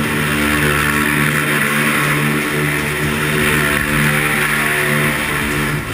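ATV engine running hard at a steady, high speed, holding one pitch with only slight wavering, in a concrete underpass. It cuts off abruptly at the end.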